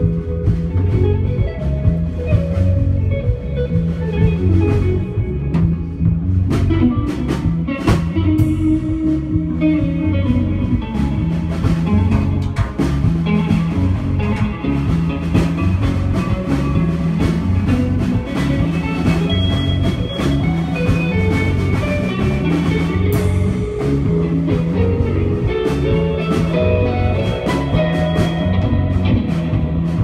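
Instrumental rock trio playing live: electric guitar, electric bass and drum kit, with frequent cymbal strikes over a steady, repeating bass pattern.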